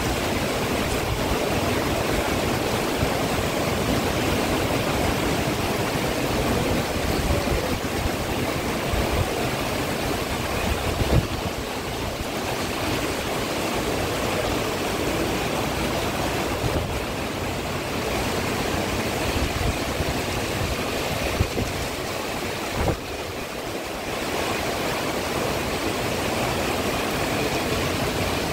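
Heavy downpour of rain: a steady, dense rushing hiss, with a few brief low bumps.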